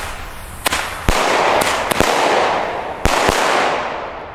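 Weco Flash Bang small bomb tubes firing their flash-bang shells: about five sharp, loud bangs spread over about three seconds, with a steady hiss between them that fades near the end.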